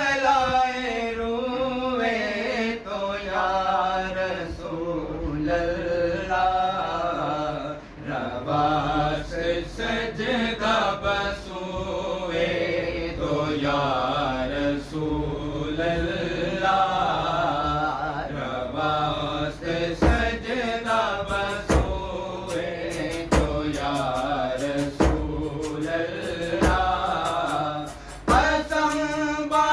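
Male voices singing a devotional naat in a slow, chant-like melody, accompanied by a large hand-held drum. The drum beats become strong and regular from about twenty seconds in.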